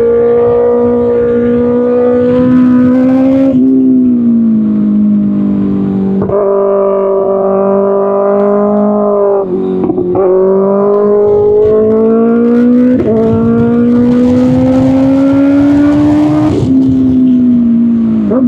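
Kawasaki Ninja ZX-6R's inline-four engine running loud through an Arrow Pro Race exhaust under way. The engine note climbs slowly, with a sudden change in pitch about every three to four seconds as the rider changes gear.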